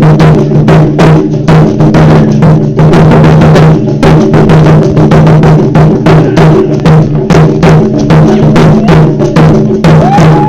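Ensemble of Japanese taiko drums played live, loud and close, with steady strokes about three to four a second over the deep ringing of the large drums.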